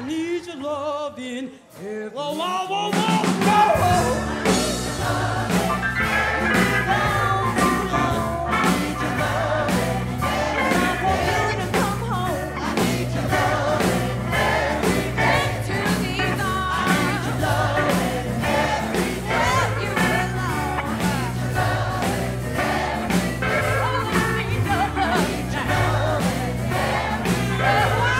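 A live band with grand piano and a large choir performing a gospel-flavoured rock and roll song. After a brief drop to near quiet at the start, the full band and voices come back in with a steady beat.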